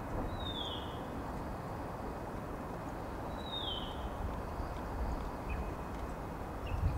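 A bird calls twice, each a short falling note about three seconds apart, over a steady low background rush.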